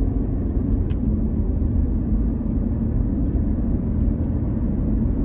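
Car road noise while driving at speed on a highway: a steady low rumble of tyres and engine.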